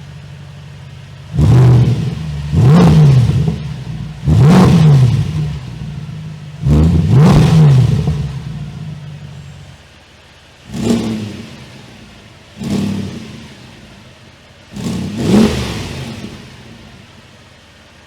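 Mercedes-AMG M156 6.2-litre V8 in an ML63 AMG, exhaust fitted with dual bypass cutout valves, free-revving from idle: four long revs close together, then three shorter blips, each climbing in pitch and falling back to a low idle.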